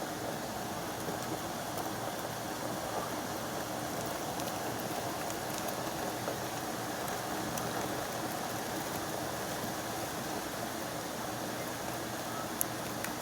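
Steady rain falling, with scattered small sharp ticks of drops striking a hard surface and one louder drip near the end.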